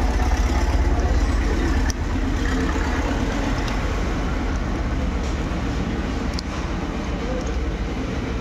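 Steady low rumble of background traffic noise, with a few faint clicks as a long screwdriver works the screw on a brake master cylinder piston.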